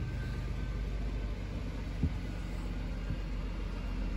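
Scania articulated lorry's diesel engine running with a steady low rumble as the lorry drives off, with a brief low thump about two seconds in.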